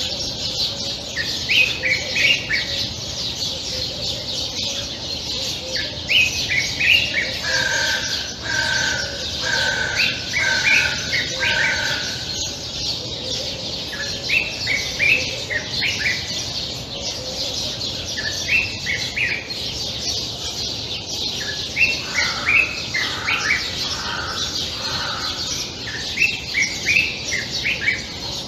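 Common bulbul singing: short phrases of quick, chirpy notes repeated every few seconds. About a third of the way in comes a run of five even, lower whistles, and a steady high background hiss lies under it all.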